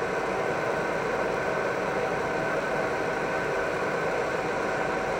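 Fiber laser marking machine running while it marks a ring: a steady whir with a thin, even whine above it.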